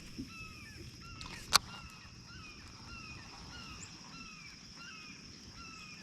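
An animal calling over and over, short falling notes about twice a second, over a steady high-pitched hum, with one sharp click about a second and a half in.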